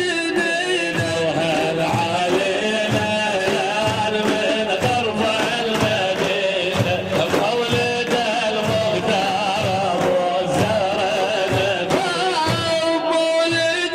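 Arabic devotional praise singing (madih) for the mawlid: a wavering, ornamented vocal melody over a steady beat of hand drums.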